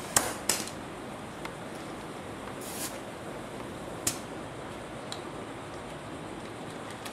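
Tyre valve stem letting out short hisses of air as a dial pressure gauge is pressed on and taken off, with a few sharp clicks from the gauge against the valve, over a steady low background hiss.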